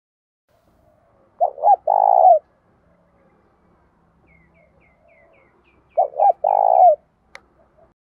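Spotted dove cooing twice, about four seconds apart. Each call is two short notes and then a longer coo, in the voice that keepers call 'giọng thổ'. Between and under the second call a small bird chirps faintly in a quick series, and a sharp click comes near the end.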